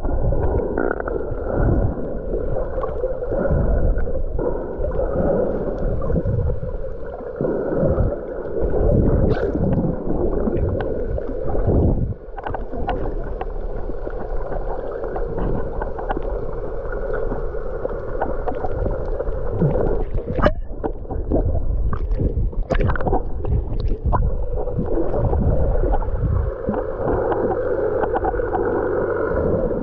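Muffled water sloshing and gurgling around a snorkeler, with a few sharp clicks or knocks around two-thirds of the way through.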